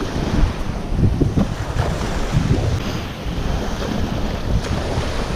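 Wind buffeting the microphone over the wash of sea waves around a kayak in rough water.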